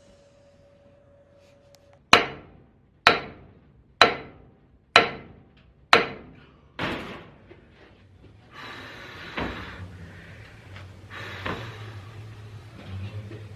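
Six loud hammer-like bangs, about one a second, each ringing briefly, followed by a rustling noise with a low hum and a couple of clicks.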